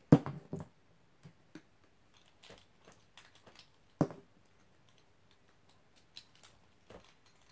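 Beyblade tops being picked up and set down one by one, giving light clicks and clacks, with sharper knocks just after the start and again about four seconds in.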